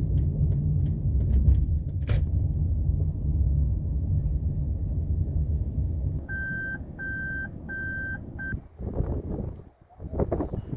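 Steady low rumble of a car being driven, heard from inside the cabin, then four evenly spaced electronic beeps from the car about six seconds in. Once the rumble stops, gusts of wind buffet the microphone near the end.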